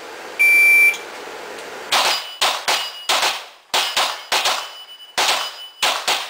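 An IPSC shot timer beeps once, half a second long, then about a dozen rapid gunshots follow over some four seconds, with steel targets ringing after many of the hits.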